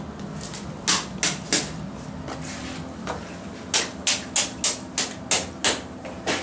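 Footsteps of shoes on a tiled floor: a few steps about a second in, then a brisk run of about three steps a second through the second half, over a low steady hum.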